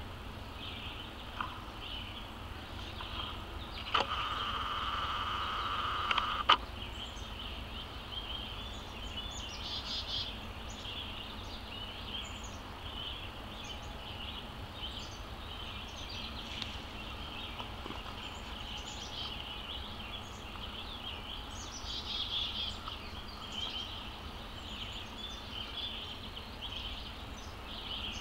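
Small birds chirping and calling continuously in woodland over a low steady outdoor rumble. About four seconds in, a louder steady buzz starts and then cuts off with a click a couple of seconds later.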